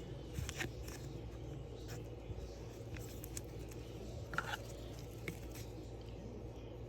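Faint rustling and light clicks of trading cards being handled and slid against each other, over a low steady room hum.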